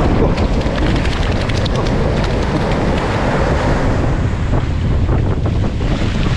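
Wind buffeting the microphone with a heavy low rumble, over the wash of surf running across the sand.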